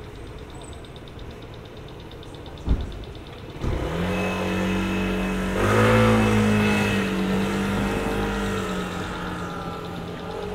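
A sharp thump, then about a second later a vehicle engine starts up close by and runs steadily. Its pitch and loudness rise briefly in a short rev, then ease back towards the end.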